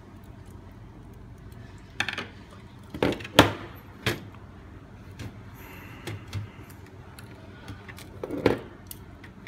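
Several sharp clicks and knocks of a hard drive and video recorder casing being handled while the drive is fitted. The loudest knock comes a little over three seconds in, and another cluster comes near the end.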